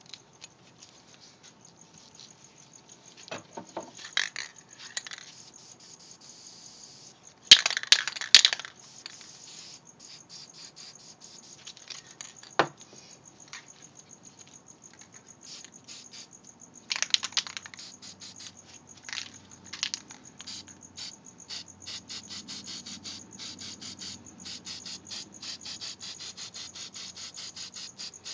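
Aerosol spray-paint can hissing in several short bursts, the loudest about a third of the way in, with scattered clicks between and a fast run of light ticks in the second half.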